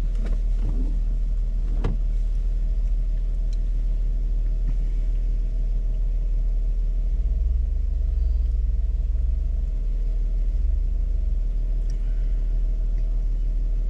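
Jeep engine running at low revs as it crawls slowly through a tight rocky hairpin turn, a steady low rumble that swells briefly twice in the second half as more throttle is given. A single sharp click about two seconds in.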